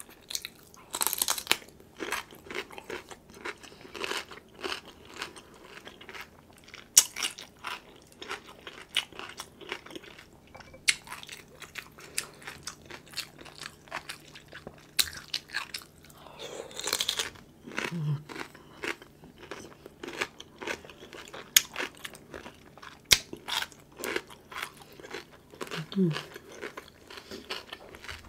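Close-up crunching and chewing of raw cucumber spears dipped in sauce: many sharp, irregular crunches as the cucumber is bitten and chewed.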